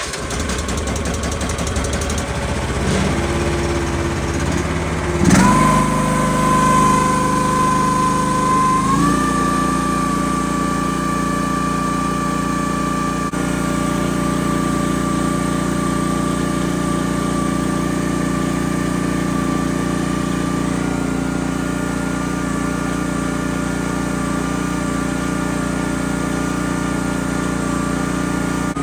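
A mini excavator's small gasoline engine running, throttled up in two steps, about five and nine seconds in, then held steady at its highest RPM.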